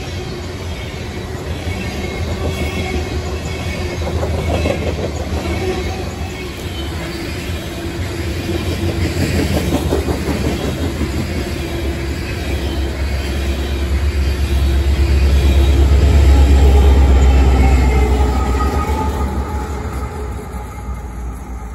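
Coal train's hopper cars rolling past with wheel clatter and some high wheel squeal. The rear pusher diesel-electric locomotives then pass: their deep engine rumble swells to its loudest about three-quarters of the way through and fades as they move away.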